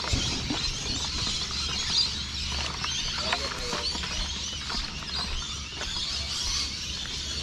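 Outdoor ambience of many small bird chirps over a steady low rumble, with a short wavering call about three seconds in.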